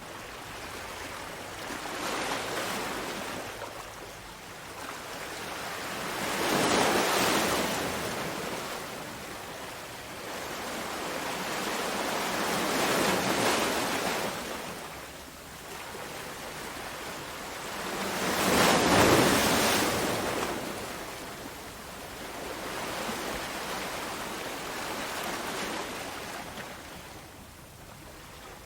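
Ocean surf: waves breaking and washing in, a hiss that swells and fades every five or six seconds, with the strongest surges about a quarter of the way in and again about two-thirds in.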